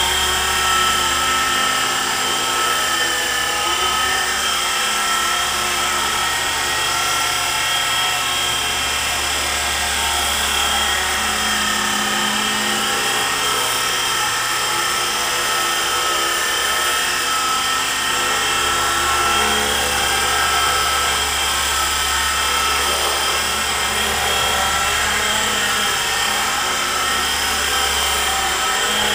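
Small electric RC helicopter (E-flite SR120) flying: the steady high whine of its electric motor and spinning rotors, wavering slightly in pitch as it manoeuvres.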